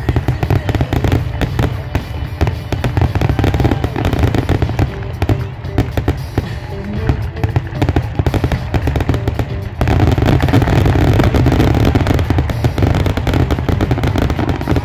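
Aerial fireworks finale barrage: a dense, continuous run of shell bursts and crackling reports, growing louder and denser about ten seconds in.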